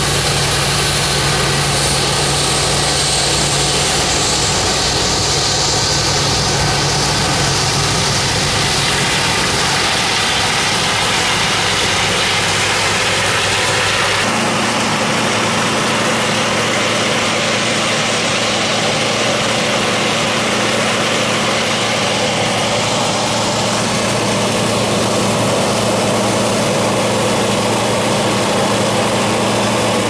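Diesel engines of a John Deere tractor and combine running steadily while the combine unloads corn into a grain cart on the go. About halfway through the sound changes abruptly to a different steady engine hum as corn pours from an unloading auger into a grain cart.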